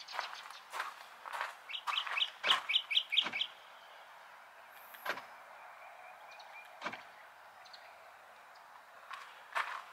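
A bird calling: a quick run of about eight high chirps a couple of seconds in, over faint outdoor background with scattered light clicks and taps.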